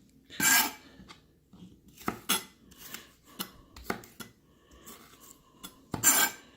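Santoku kitchen knife knocking on a cutting board in scattered single strokes, with two longer scraping swishes, one about half a second in and one near the end.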